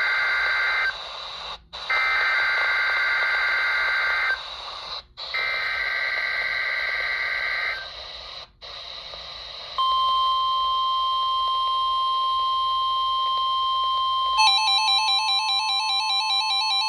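NOAA Weather Radio test signal through a weather radio's speaker: the end of one SAME digital header burst, then two more bursts of rapid two-tone data warble, each about two and a half seconds long with short gaps. About ten seconds in, the steady 1050 Hz warning-alarm tone begins. About four seconds later the weather radio's own alert starts beeping rapidly over it, the receiver set off by the test code.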